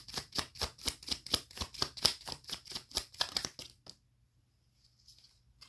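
A deck of tarot cards being shuffled by hand: a quick, even run of card slaps, about six a second, that stops about four seconds in, followed by a faint rustle of cards near the end.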